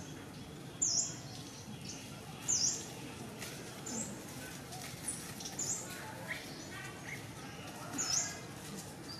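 A bird calling: a short, high note repeated every one to two seconds, with fainter chirps in between.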